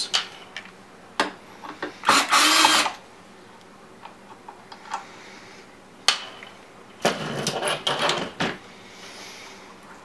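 Cordless drill-driver running in two short bursts, about two seconds in and again at about seven seconds, backing out the two screws of the tonearm cable clamp on a Technics 1200 turntable's underside. A few light clicks fall between the bursts.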